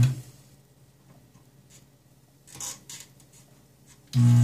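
Vacuum desoldering gun's pump running with a steady low hum as it sucks solder out of circuit-board joints. The hum cuts off just after the start, a couple of light clicks follow, and it starts again near the end.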